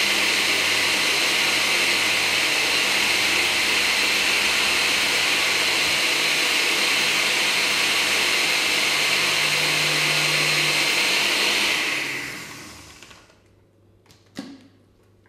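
Countertop blender running steadily at high speed, puréeing chickpeas and tahini into hummus, then switched off about 12 seconds in and winding down. A short light knock follows as the jar is handled.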